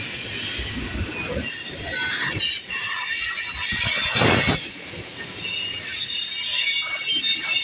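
Freight train tank cars rolling past at trackside: low rumble and clatter of the wheels and trucks under a steady high wheel squeal. A louder clank comes about four seconds in.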